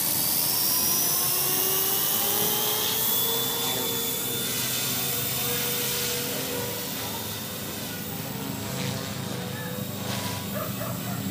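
Small electric RC helicopter (OXY 2 Pro 215, Lynx EOX 3600kv brushless motor) spooling up with a rising whine of motor and rotor blades over about the first second. It then holds a steady whine as the VBar governor keeps the head speed constant in flight, growing somewhat fainter after the middle.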